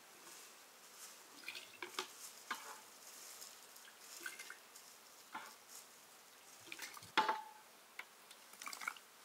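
A metal ladle scooping white grape jam from an enamel basin and tipping it into a metal funnel: scattered light clinks and scrapes of metal on enamel and metal, with syrup dripping and pouring. The loudest clink, about seven seconds in, rings briefly.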